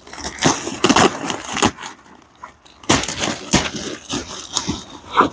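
Irregular crinkling and rustling of the Life Tent's thin plastic sheeting as it is handled and pressed down while gaps are taped shut, in two spells with a lull in between.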